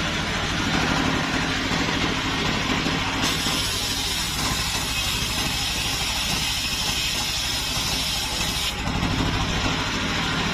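Large engine-driven circular saw blade of a mobile sawmill table ripping a wooden plank lengthwise, over the engine's steady running. The cutting noise grows louder about three seconds in and drops back about nine seconds in.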